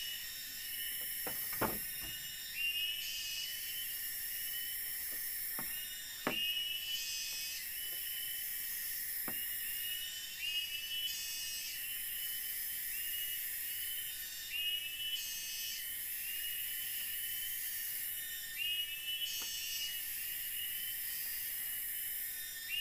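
Night insect chorus: a steady high-pitched shrill, with rising chirped calls that repeat about every four seconds. A few sharp clicks stand out, the loudest nearly two seconds in.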